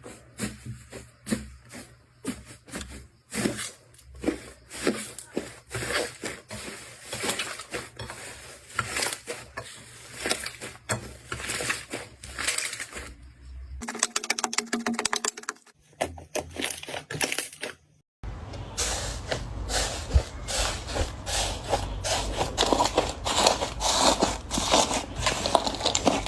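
Slime being squeezed and pressed by hand, giving many small crackles, pops and sticky clicks. The sound changes character twice, with a short run of quick, even clicks near the middle and denser crackling toward the end.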